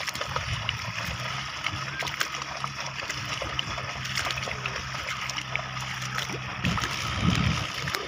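Splashing and sloshing of a pair of bullocks' hooves and a plough dragging through a flooded, muddy paddy field, with many short splashes throughout.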